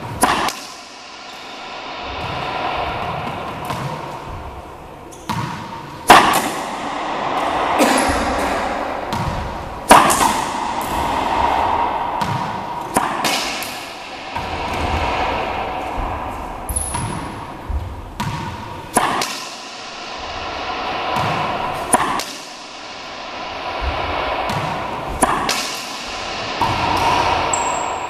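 Racquetball rally practice: the racquet cracks against the ball and the ball smacks off the wall and bounces on the hardwood floor, a string of sharp, irregular impacts that echo around the enclosed court.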